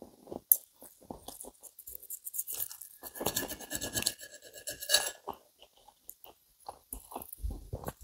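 Knife and fork scraping and clinking on a ceramic plate while cutting through a sausage. The scraping is steadiest in the middle, where the knife briefly squeaks against the plate.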